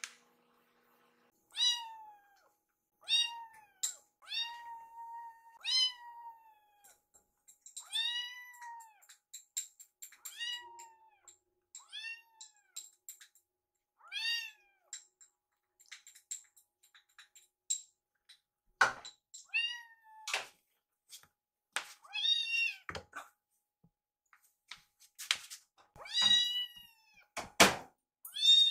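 Kittens meowing over and over in short, high calls about once a second, begging to be fed. In the last third a few sharp knocks or thumps come in among the meows.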